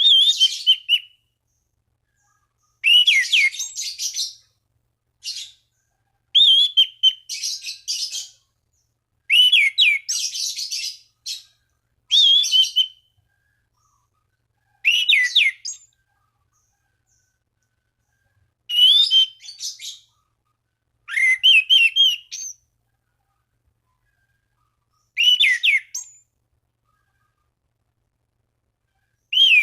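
Anis cendana (orange-banded thrush) singing in short, loud phrases every few seconds. Each phrase opens with a clear whistle sliding around 3 kHz and runs on into a burst of rapid, scratchy twittering.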